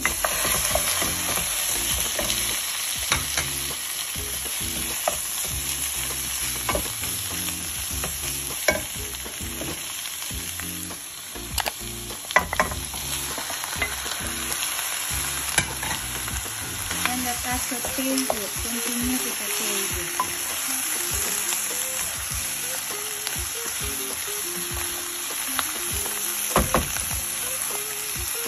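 Pork ribs and sausages sizzling in a frying pan of sautéed onion, carrot and celery, stirred with a wooden spoon that knocks against the pan now and then.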